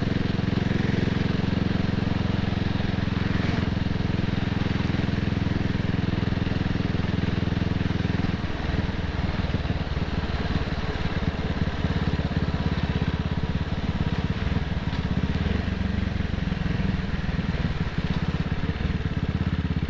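CCM Spitfire's single-cylinder engine running as the motorcycle rides along. It holds a steady note for about eight seconds, then breaks into a rougher, uneven, pulsing note.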